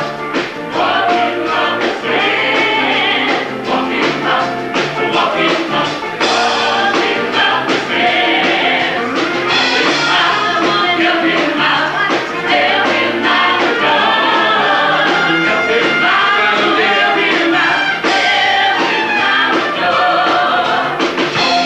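A stage-show song: a band playing with a group of voices singing.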